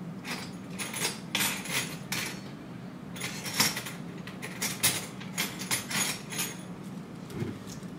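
Small stainless steel toy pots, cups and lids clinking and clattering as they are picked up and set down: a run of light metal clinks, a few sharper ones in the middle, over a steady low hum.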